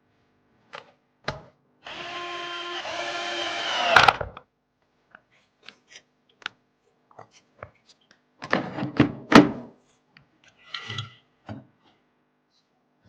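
Small electric screwdriver whirring for about two seconds, getting louder and ending in a sharp click as it drives a screw. Scattered clicks and a cluster of knocks from computer parts being handled follow.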